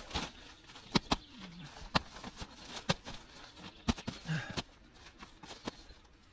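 A string of irregular sharp clicks and knocks, with two brief low pitched sounds among them.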